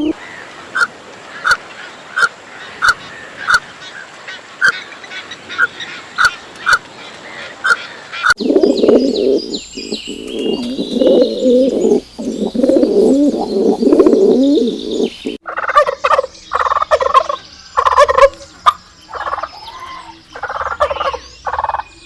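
Domestic fowl calling in three short sections. First comes a run of short, evenly spaced calls, about two a second. Then there is a dense warbling stretch of about seven seconds, and last a series of louder separate calls.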